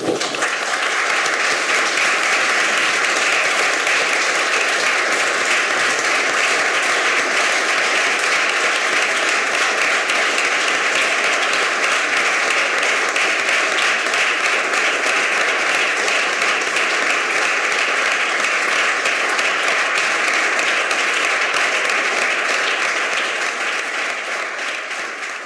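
Audience applauding steadily at length, fading out near the end.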